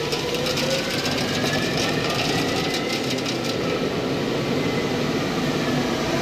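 CNC lathes turning metal workpieces: steady machining noise with crackling chip noise, and a faint spindle whine that slowly rises in pitch and then falls again.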